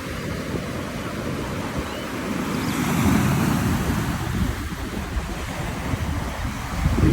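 Sea waves washing in, a continuous rush that swells about three seconds in, with wind buffeting the microphone near the end.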